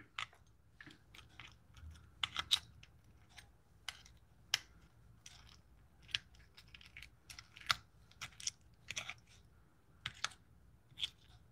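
Metal utensil scraping and clicking against the inside of a boiled blue crab's shell as the meat is picked out: faint, irregular small clicks and scrapes.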